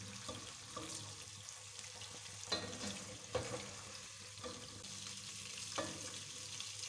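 Chicken tikka pieces frying in shallow oil in a nonstick pan with a faint steady sizzle, while a slotted spatula scoops them out, knocking and scraping against the pan about five times.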